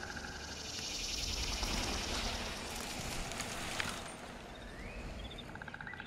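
Outdoor ambience: a steady hiss with small birds chirping faintly, a short rising whistle about five seconds in, and a rapid trill near the start and again at the end.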